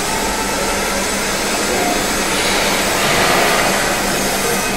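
Steady, loud industrial din of a steel fabrication shop floor: a continuous hiss-like roar of machines and air, growing a little brighter and hissier about halfway through.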